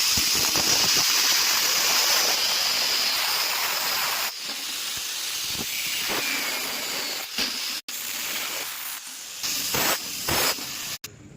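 Welding arc hissing and crackling steadily, with brief breaks where the sound cuts out.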